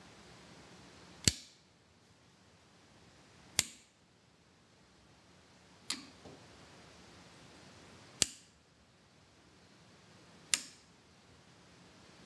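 Relays on a drink machine's control boards clicking one at a time, five sharp clicks at an even pace of about one every two and a quarter seconds, as a test steps through the outputs.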